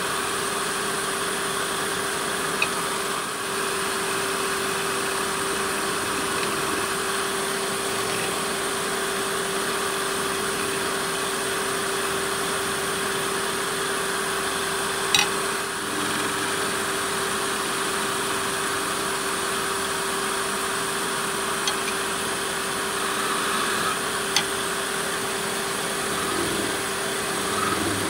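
Wood lathe running steadily with a constant hum while a lathe knife pares the small spinning spindle, with a few brief sharp ticks, the loudest about halfway through.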